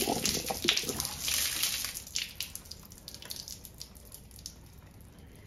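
Water splashing and dripping out of a Bell & Gossett Series 100 circulator pump body as its motor and impeller assembly is pulled free, with a few sharp metal clicks. It fades after about two seconds.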